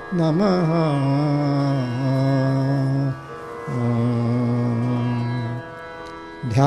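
Indian devotional chant sung in Carnatic style: a single voice holding long notes with ornamented, wavering glides, in phrases broken by short pauses.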